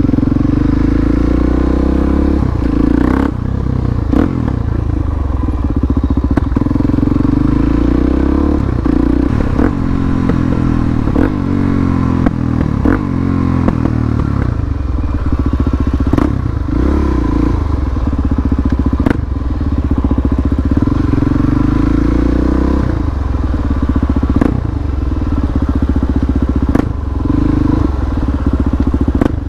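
Harley-Davidson Dyna's V-twin engine running under way on a ride, its pitch rising and falling repeatedly as the rider works the throttle and changes gear, with scattered sharp knocks.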